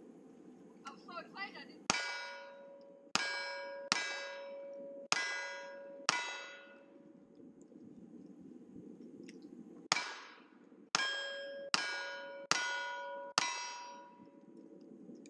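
Ten single-action revolver shots at steel plate targets, in two strings of five about four seconds apart. Each shot is followed by the ringing of the steel plate it hits, fading away before the next shot.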